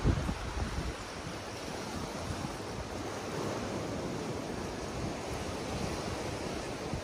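Sea surf washing on a sandy beach as a steady hiss, with wind buffeting the microphone in low rumbling gusts, strongest in the first second.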